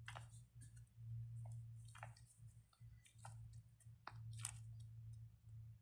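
Faint soft squishes and small clicks, spaced irregularly, from a fidget toy being squeezed and worked in the hands, over a low steady hum.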